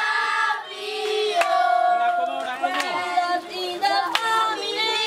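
A group of children singing together, with hand claps about every second and a half.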